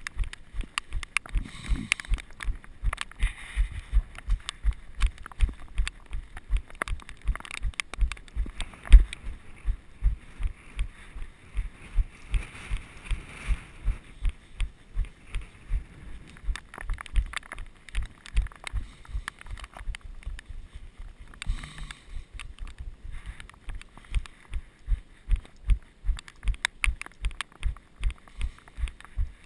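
A runner's footfalls jolting a body-worn action camera: steady low thuds about three a second, with one louder knock about nine seconds in.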